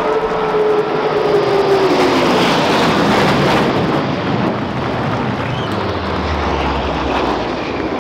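Low-flying military transport aircraft passing overhead: a rushing engine drone whose tone falls steadily in pitch as it goes by, then slowly fades.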